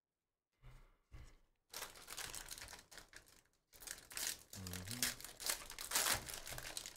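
Two soft knocks about a second in, then the foil wrapper of a baseball card pack crinkling and tearing as it is ripped open.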